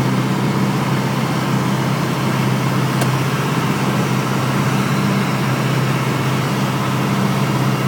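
Piston engine and propeller of a single-engine light airplane droning steadily in flight, heard from inside the cabin.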